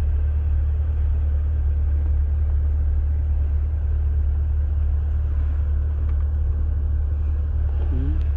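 Steady low rumble heard inside a 2020 Chevrolet Corvette's cabin.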